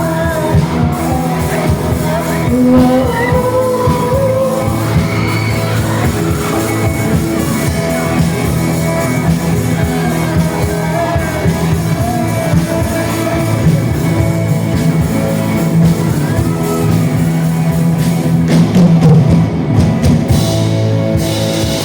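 Band music from a Thai pop-rock song: drum kit and sustained chords under a wavering melody line, with singing at times.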